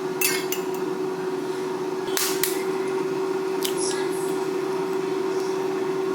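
Air fryer running with a steady hum, with a few short clicks and scrapes of kitchen utensils, the loudest about two seconds in.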